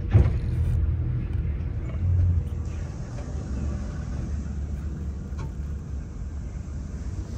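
Boat's motor running slowly as a steady low rumble. There is a single knock just after the start, and a steady hiss comes in about three seconds in.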